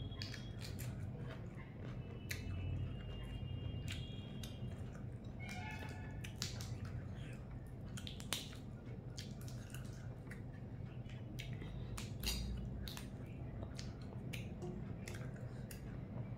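A person chewing and crunching food close to the microphone, with many sharp clicks and cracks.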